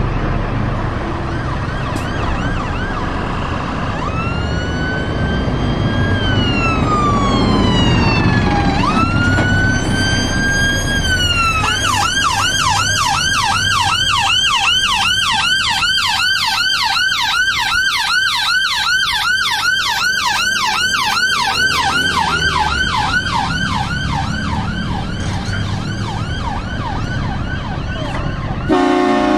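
Ambulance siren, first a slow rising-and-falling wail, then switching to a fast yelp that fades away later. Heavy lorry engines rumble underneath, and a horn blasts near the end.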